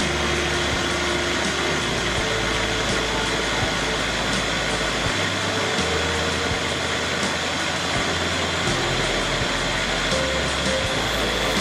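Electric mini chopper's motor running steadily, whirring as it blends pineapple and tomato into a frothy liquid. Background music with a moving bass line plays alongside.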